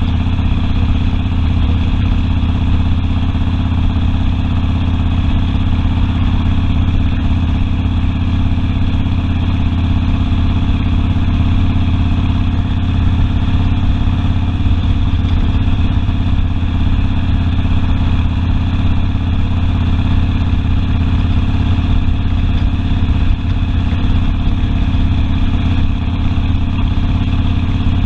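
Harley-Davidson Sportster's V-twin engine running steadily while riding, holding an even note with no sharp revs.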